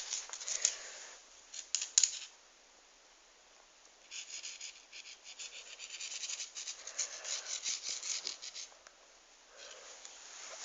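A cat scrabbling and scratching at a plastic toy: quick scratchy rubbing strokes with a couple of sharp knocks about two seconds in, then a dense run of rapid scraping from about four seconds to near the end.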